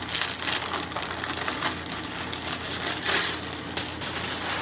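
Plastic packaging crinkling and rustling as it is handled, a dense run of small crackles.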